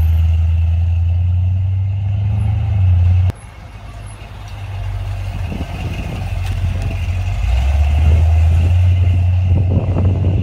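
1979 Chevrolet C10's 350 small-block V8, with headers and Flowmaster mufflers, running with a loud, steady exhaust note. About three seconds in the sound cuts off abruptly and comes back as the truck drives past, its exhaust growing louder as it pulls away.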